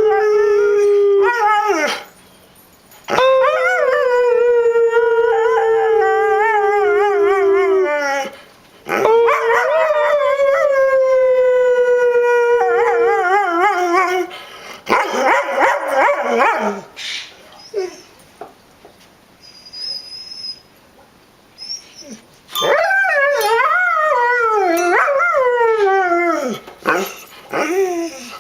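Dogs howling: three long, drawn-out howls that sag slowly in pitch, a rougher stretch of barking and yipping about halfway through, and a wavering, warbling howl near the end.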